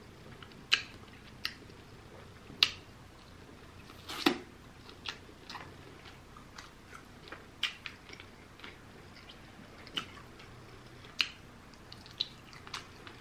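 Close-miked eating of rotisserie chicken by hand: soft chewing with sharp, irregular wet mouth smacks and clicks, roughly one or two a second.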